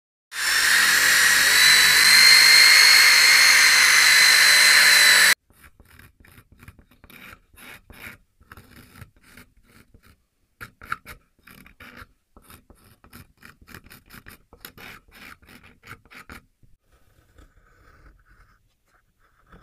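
A loud, steady machine whine with hiss runs for about five seconds and stops abruptly. Then a small hand blade scrapes and gouges a pine board in short, irregular strokes, roughly two a second. They fade out near the end.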